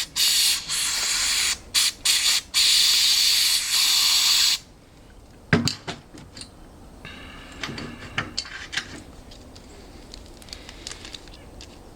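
Aerosol lock de-icer sprayed in several hissing bursts into the iced-up keyway of a frozen padlock, the last and longest lasting about two seconds. After the spraying stops there is a sharp knock, then a few light clicks and rattles.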